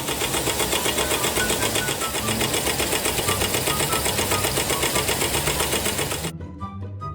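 Razor-blade production machine clattering rapidly and steadily, at about eight to ten strokes a second, over background music. The machine cuts off abruptly near the end, leaving only the music.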